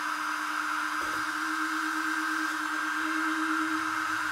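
ToolkitRC M8S charger's cooling fans running at high speed, a steady whir with a constant hum-like tone under it. They run this fast because the charger is working under a heavy charge load of about 18 amps.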